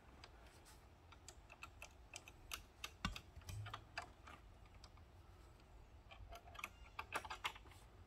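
Faint, irregular light clicks and taps, with one louder knock about three seconds in, as a wooden garden-railway drawbridge is eased down by hand.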